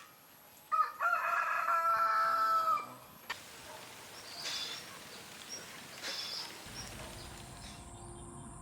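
A rooster crows once, a single call of about two seconds, followed by a few faint high bird chirps.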